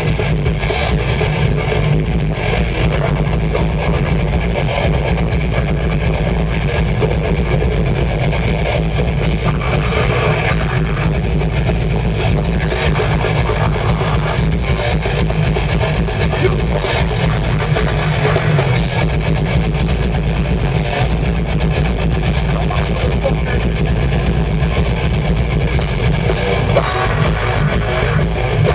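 A rock band playing live, with electric guitars and a drum kit. The music is loud and continuous, heavy in the low end.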